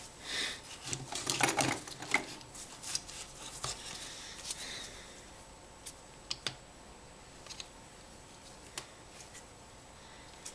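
Rapid, irregular clicks and short scraping sounds from dabbing and spreading JB Weld epoxy onto cotton paper with a sponge and a small blade. They come thickly in the first half and thin out to occasional ticks.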